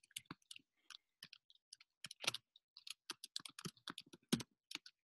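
Typing on a computer keyboard: a faint, uneven run of keystroke clicks that stops near the end.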